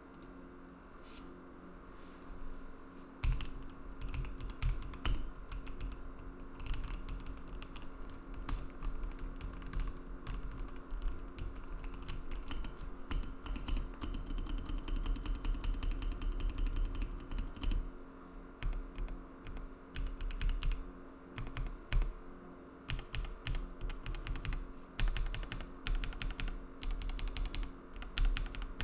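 Typing on a KBDCraft Adam 'Lego keyboard' fitted with S2 linear switches in POM housings on a POM plate with Poron foam. A few scattered keystrokes come first, then fast, continuous typing starting about three seconds in.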